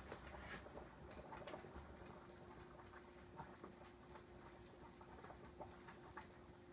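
Near silence: faint scattered ticks and pops from pans cooking on the stovetop, over a steady faint hum.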